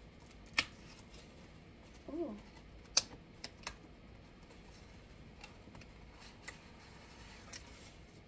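Scattered sharp clicks and taps of hands opening a small cardboard advent-calendar box, loudest about half a second in and about three seconds in. A brief hummed vocal sound comes about two seconds in.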